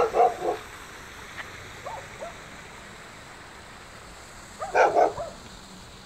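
A dog barking in two short bouts, one at the start and one near the end, with a couple of faint yips in between.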